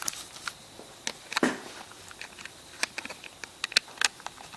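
Scattered sharp clicks and light taps of small hard objects being handled: a dozen or more, irregularly spaced, with one fuller knock about one and a half seconds in.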